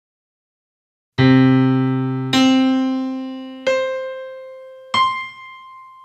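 Four struck, piano-like keyboard notes, about 1.3 s apart, the first starting about a second in. Each note is roughly an octave higher than the one before, and each rings and fades away.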